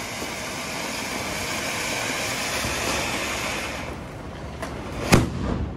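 An anar (flower-pot fountain firework) hissing steadily as it sprays sparks, then dying down after about four seconds. A single sharp bang follows near the end.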